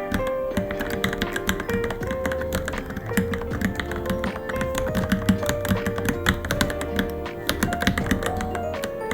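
Rapid, irregular keystrokes on a Varmilo Minilo mechanical keyboard, over background music with a plucked, melodic line.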